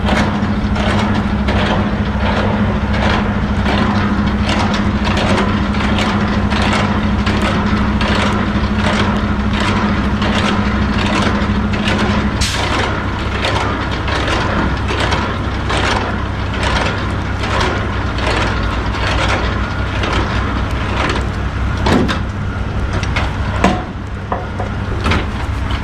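Semi truck's diesel engine idling with a steady low hum, plus a higher steady tone that stops about halfway through. Over it runs a string of sharp clicks and knocks, about two a second.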